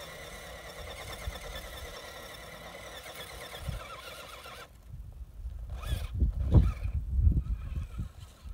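Electric motor and geared drivetrain of an RC rock crawler whining under throttle, a wavering high-pitched whine that cuts off suddenly after about four and a half seconds. Wind then rumbles on the microphone, with a couple of brief blips of motor whine.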